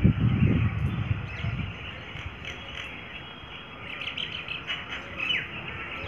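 Myna calling: a run of short chirps and slurred whistles, busiest near the end. A low rumble on the microphone in the first second and a half.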